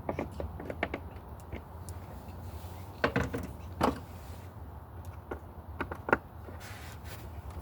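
Scattered small clicks, taps and scrapes of a screwdriver and wire being worked at the green ground screw in an electrical box, as the ground wire is wrapped under the screw head and tightened, over a steady low hum.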